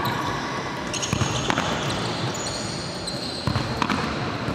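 Futsal ball striking and bouncing on an indoor court floor: a few sharp thuds, two about a second in and two more around three and a half seconds, with high-pitched shoe squeaks on the court surface.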